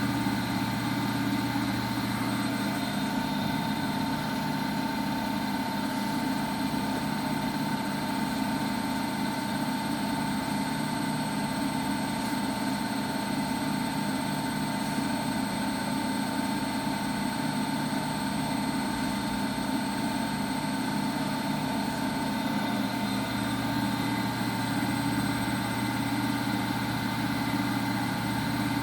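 Washing machine running, its motor giving a steady hum and whir with several fixed tones that holds level throughout.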